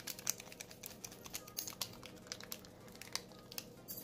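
Plastic MRE packets being handled and crinkled, an irregular run of small clicks and crackles.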